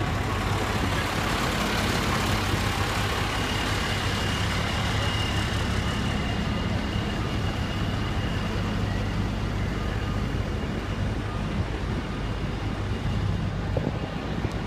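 Heavy diesel engines of fire apparatus running steadily with a low, even hum; a faint high whine sits over it for a few seconds midway.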